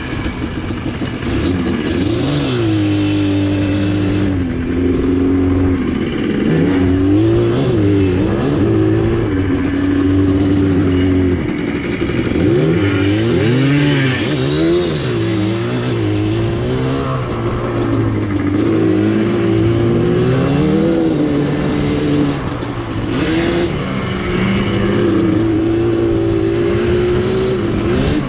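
Small off-road vehicle engine running under way, revving up and easing off over and over as it accelerates and shifts, its pitch rising and falling.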